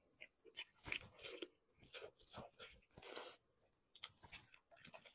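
Close-miked chewing and biting into a braised beef trotter, full of tendons: irregular clicks and smacks of the mouth working the meat, several a second, the loudest about a second in and again near three seconds.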